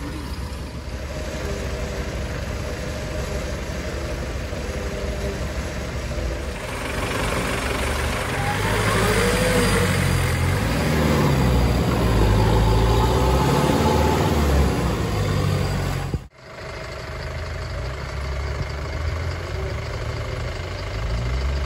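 Off-road 4x4 vehicle's engine running, revving up and down and loudest through the middle, then settling back to steadier running after a sudden brief break about two-thirds of the way in.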